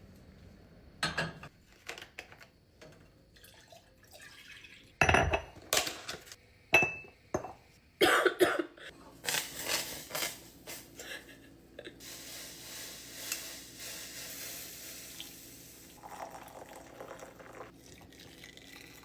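Kitchen clatter of cups, spoons and pans, with sharp clinks and knocks while a milk, butter and honey drink is made. The loudest knocks come about five and eight seconds in. After that a steady low hiss takes over.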